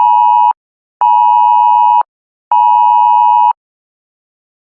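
Emergency Alert System attention signal, a steady two-tone alert beep. It breaks off about half a second in and sounds twice more for about a second each, then stops.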